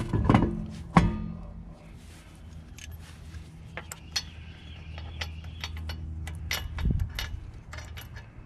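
A car's alloy wheel clanks onto the hub, with a few loud metallic knocks and brief ringing in the first second. After that, lug nuts are spun onto the wheel studs by hand, giving a scatter of light metallic clicks and rattles.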